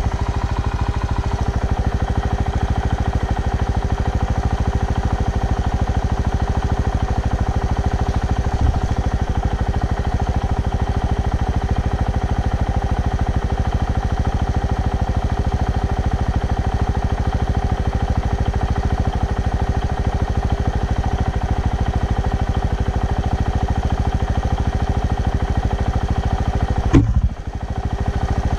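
Engine idling steadily with an even, unchanging beat. Near the end there is a sharp knock and a momentary drop in the sound.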